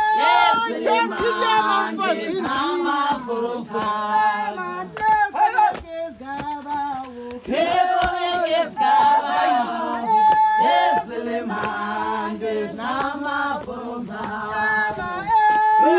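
A group of women singing together in a traditional Xhosa song, several voices holding and bending the notes.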